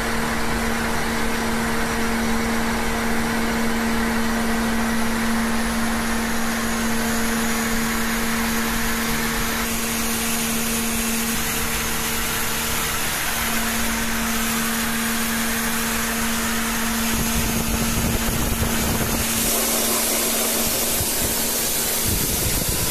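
A high-pressure breathing air compressor runs steadily under load with a constant hum as it fills an EEBD air cylinder toward 200 bar.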